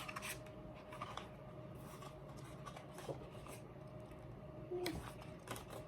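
Faint paper rustles and light taps of a K-pop album's photobook pages being handled and turned.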